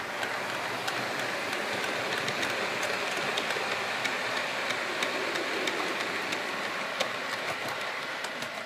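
Model trains running on the layout's track: a steady rolling rattle of wheels with light, irregular clicks over the rail joints, fading near the end.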